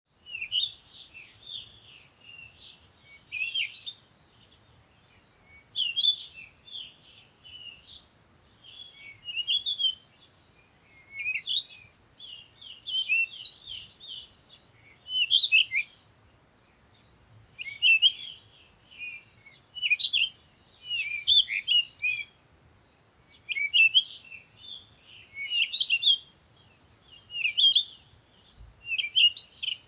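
Songbirds singing: phrases of quick, high chirps and trills, about one every two seconds, with short pauses between.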